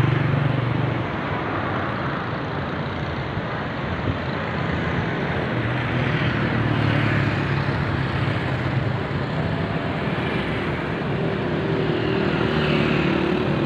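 Steady road traffic noise from passing cars, with the low rumble of vehicles swelling louder a few times as they go by.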